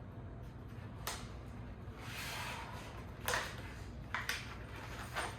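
Packaging being handled: a stretch of rustling with a few light knocks and clicks of parts being moved.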